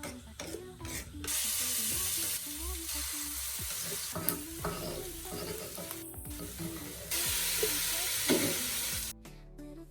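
Food sizzling while frying in hot oil in a pan, a steady hiss that jumps abruptly in level a couple of times, with a few short clinks. Soft background music runs underneath.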